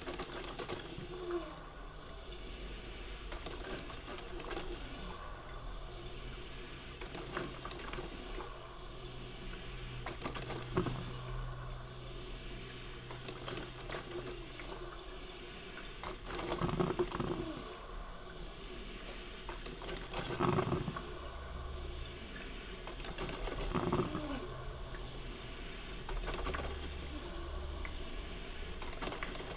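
Coffee maker brewing: a steady hiss of steam, with gurgles of boiling water that come more often in the second half, about every three to four seconds.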